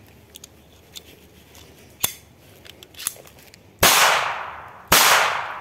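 Two loud shots from a Makarov-pattern traumatic pistol firing 9 mm P.A. rubber-bullet cartridges, about a second apart, each trailing off in a long fading ring-out. A single sharp click comes about two seconds in.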